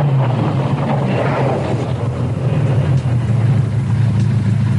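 Lamborghini Diablo's V12 engine running steadily at low revs.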